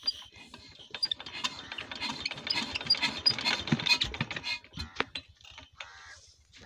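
Metallic clicking and rattling from hands and tools working on a Nayab SD 20 hp diesel engine. It is dense for a few seconds, then thins to scattered clicks, with a faint low regular thudding underneath.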